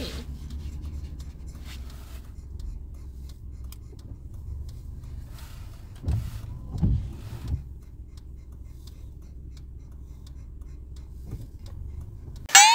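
Steady low road rumble of a car, heard from inside the cabin, with a few brief low bumps around the middle. Near the end there is a short, loud rising sweep.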